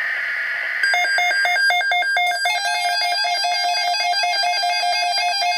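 Emergency alert signal on a NOAA Weather Radio broadcast: a buzzy digital data burst of the kind used in a SAME header, then, about a second in, a rapid electronic pattern of short pitched beeps.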